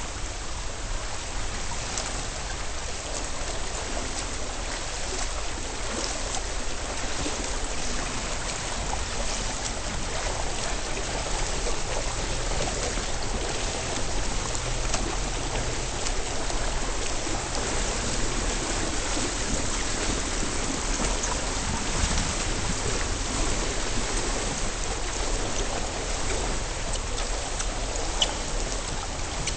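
Steady underwater hiss and churn of a swimming pool heard through a submerged camera, with a front-crawl swimmer's arm strokes and kicks stirring the water.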